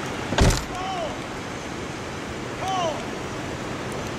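Fast-running river rushing steadily. A sharp thump comes about half a second in, and two short calls that rise and fall in pitch come about a second in and near three seconds in.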